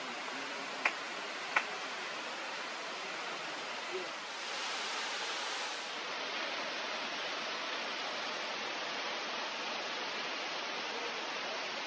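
Nachi Falls, a tall waterfall, giving a steady rushing noise of falling water. Two short sharp clicks come about a second in, and the hiss turns briefly brighter a little after four seconds.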